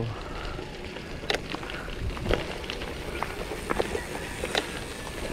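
Bicycle rolling over a rocky dirt trail: a steady rush of tyre noise broken by scattered sharp knocks and clicks from stones and the rattling bike.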